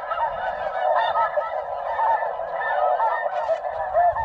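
A dense chorus of snow goose calls: many overlapping short, high honks with no break.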